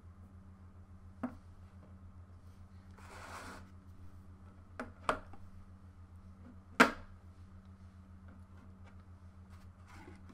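Smartphones and cardboard boxes handled on a tabletop: a few light taps and knocks as the phones are set down, the loudest about seven seconds in, and a brief rustle around three seconds in, over a steady low hum.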